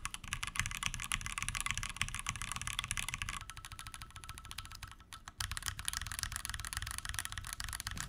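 Fast typing on mechanical keyboards, one after the other. First a Tofu 60% with lubed Gateron Black Ink switches, a solid clacky sound. From about three and a half seconds in, the gasket-mounted Keychron Q2 with Gateron Pro Brown switches, which has a bassier rumble, with a brief pause about five seconds in.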